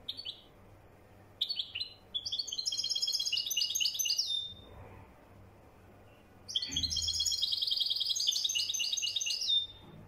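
European goldfinch singing in the Moroccan Marrakchi song style. A brief call comes right at the start, then two fast, high twittering song phrases of about three seconds each, separated by a short pause.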